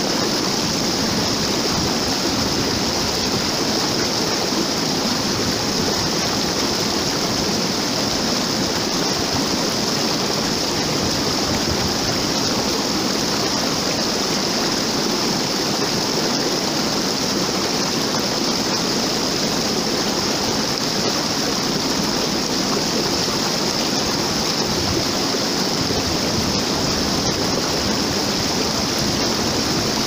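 A waterfall pouring into a pool below, a steady, unbroken rush of falling water.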